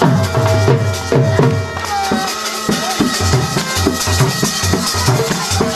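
Loud music with a steady drum beat and melody; the low drum beat drops out briefly about two seconds in.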